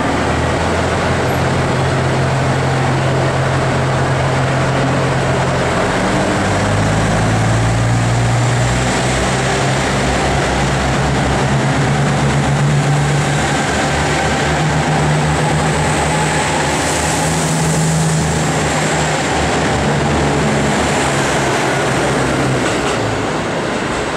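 Five-car KiHa 85 series diesel railcar train pulling away and running past close by, its diesel engines droning under power. The drone steps up in pitch about seven seconds in and holds, then fades near the end as the last car moves off.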